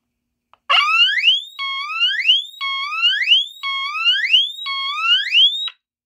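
Teledyne Water-Pik D-2 SonicSiren smoke detector's electronic piezo horn sounding its siren whoop on test. Loud rising whoops, about one a second, each holding a low note and then gliding up in pitch. About five whoops, cutting off abruptly near the end.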